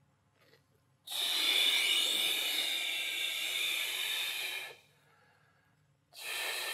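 A man breathing slowly and audibly in a controlled breathing exercise. One long, loud breath lasts nearly four seconds, and a second begins near the end.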